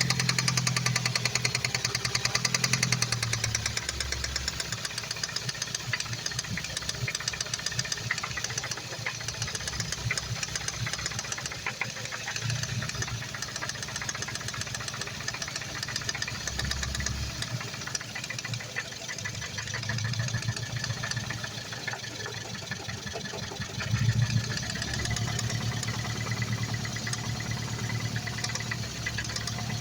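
Ford Focus ST engine idling with a loud, rapid ticking knock, which the owner suspects may be an injector, an ignition coil or a cam phaser. The sound is briefly louder about 24 seconds in.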